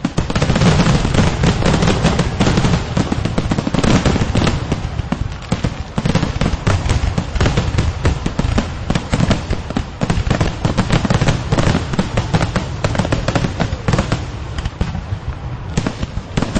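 Fireworks going off in a dense, continuous barrage of bangs and crackles, thinning a little near the end.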